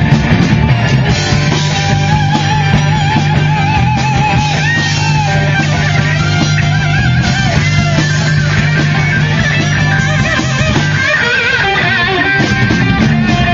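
Live rock band playing an instrumental break: an electric guitar lead with bent, wavering notes over drums and bass guitar.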